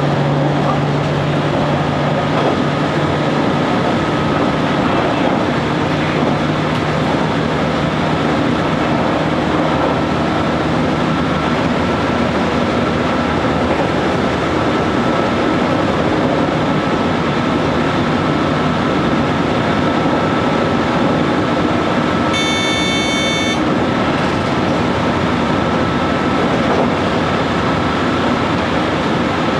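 Train running along the track at speed, heard from the front cab: a steady rumble and rail noise, with a low hum that fades out about a third of the way in. A brief high-pitched tone sounds for about a second near the three-quarter mark.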